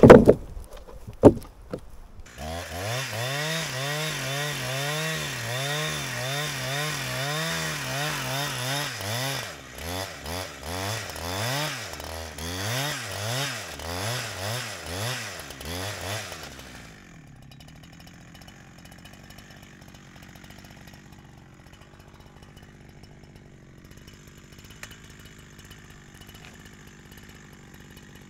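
A wooden slab knocks down hard twice, then a two-stroke chainsaw runs at high revs into a spruce log, its pitch wavering under load. It then revs up and down repeatedly and cuts off about seventeen seconds in.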